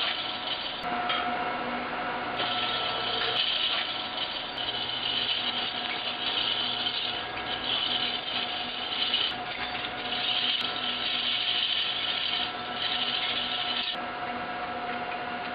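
Chain hoist being worked in stretches of one to three seconds, a rasping mechanical noise that starts and stops about six times over a steady hum.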